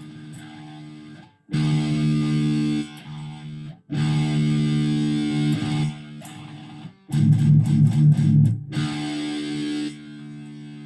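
First Act ME 506 electric guitar played with a distorted tone: loud chords held and cut off sharply, a quick run of short muted chugs about seven seconds in, then a softer ringing chord.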